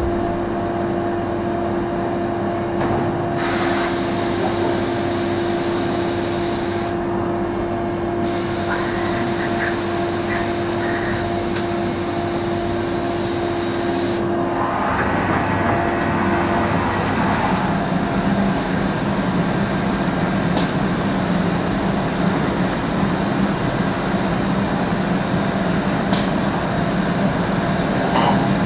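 Biesse Rover A CNC machining centre running, a steady mechanical drone with a steady tone over it. A hiss switches on and off a few times in the first half. About halfway the tone stops and the sound shifts to a lower hum.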